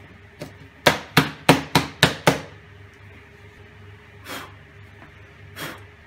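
A freshly drilled wooden podium knocked six times in quick succession, about four sharp knocks a second, then two softer knocks, as it is tipped up to shake out the drilling shavings.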